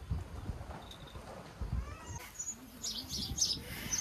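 Faint bird chirps, a few short high calls, over close soft rustling and bumps.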